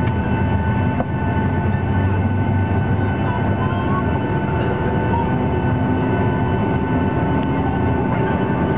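Cabin noise of a Boeing 737-800 taxiing, heard from a window seat over the wing: its CFM56-7B jet engines run at taxi power with a steady whine of fixed tones over a low rumble.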